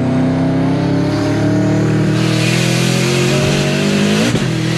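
Turbocharged Subaru WRX flat-four (a JDM EJ-series motor with a Forced Performance turbo) pulling under acceleration, heard from inside the cabin. The engine note climbs steadily, a turbo hiss builds about two seconds in, and near the end the revs drop sharply as the throttle comes off or a gear is changed.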